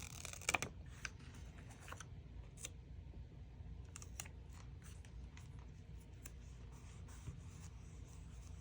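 Faint scattered clicks and light taps of hands handling sticker sheets and paper, with one sharper click about half a second in.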